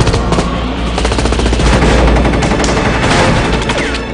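Rapid gunfire, a long unbroken run of shots fired in quick succession.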